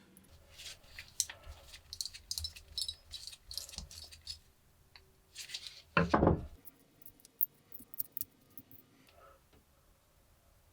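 Small metal lighter parts clinking, ticking and scraping as they are handled, with one louder knock about six seconds in.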